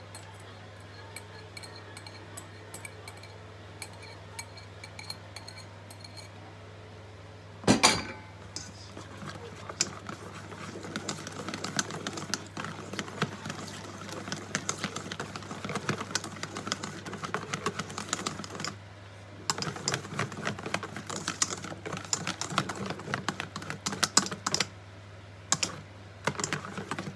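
Wire balloon whisk beating egg yolks into cake batter in a stainless steel bowl: rapid clicking and scraping of the wires against the metal bowl, starting after a single loud knock about eight seconds in, with two brief pauses.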